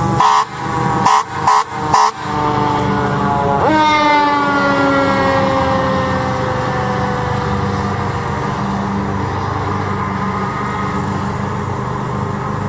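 Fire engine running under siren, with four short air-horn blasts in the first two seconds. About four seconds in, as the truck passes, the siren's pitch drops sharply and then keeps sliding lower as it drives away, over the steady rumble of its engine.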